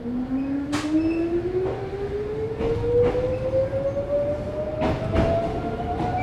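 Mizuma Railway 1000 series electric train accelerating, heard from inside the car: the inverter and traction-motor whine climbs steadily in pitch over the running rumble. A few wheel clacks over rail joints, some in pairs, break through.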